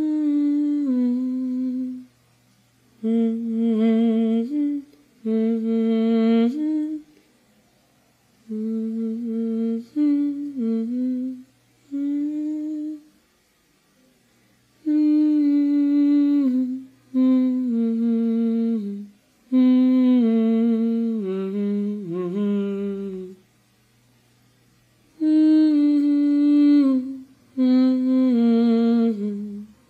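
A lone voice humming a slow, unaccompanied tune in phrases of one to three seconds, with short pauses between them.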